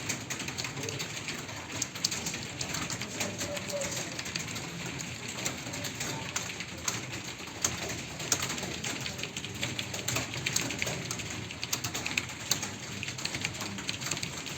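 Many computer keyboards typed on at once: a dense, irregular clatter of key clicks.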